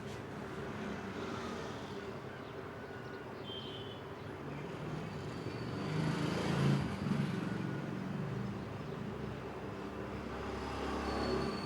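Background rumble of passing vehicle traffic, swelling about six seconds in and again near the end.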